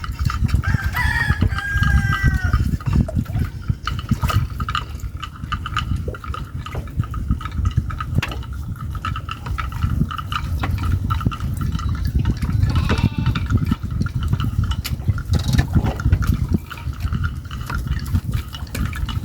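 Steady low rush of water and wind around a fishing raft. A rooster crows about a second in, with a fainter call near the middle.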